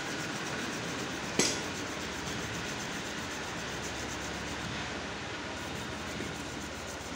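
Hand work on a tractor engine's timing chain and sprockets: one sharp metallic click about a second and a half in, over a steady background hiss.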